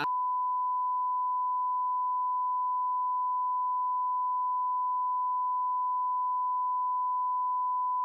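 Censorship bleep: one long, steady single-pitch tone that cuts in abruptly over a spoken sentence to blank out what is being said.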